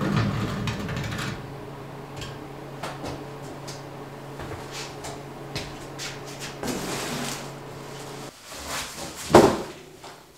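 Metal truck parts being handled: an aluminium radiator lifted out of the engine bay, then a sheet-metal panel picked up, giving scattered knocks and clatter, the loudest about nine seconds in. A steady low hum under it stops suddenly about eight seconds in.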